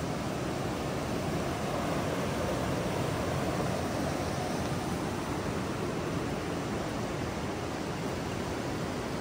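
Steady rush of flowing water, an even noise that holds at a constant level throughout.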